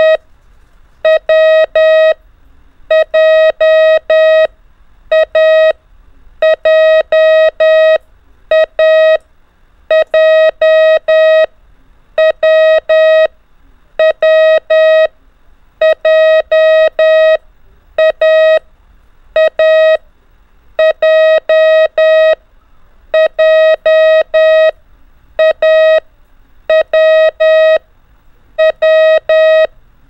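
Morse code practice tone sending the letters A, W and J (·–, ·––, ·–––) in a running drill: a steady beep keyed on and off in short dits and longer dahs, one letter group every second or two.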